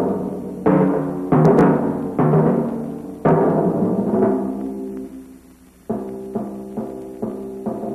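Opening title music of struck, low, ringing notes, each hit sharp and then fading away: four hits in the first half, a short lull, then five quicker hits near the end.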